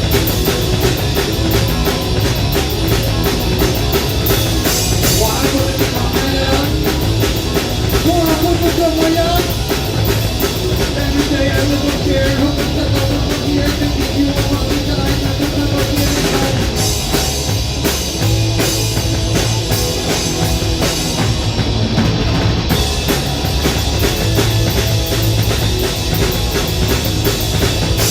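Rock band playing live: a drum kit keeps a steady driving beat under electric guitars.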